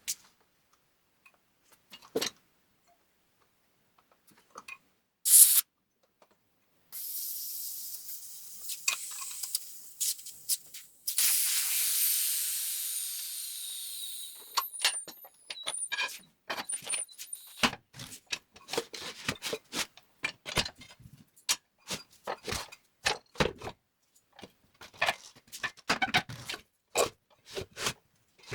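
Air hissing out of a tire as it is let down: a short burst, then a long hiss that fades away. Then a long run of sharp clicks and knocks from work on the tire changer.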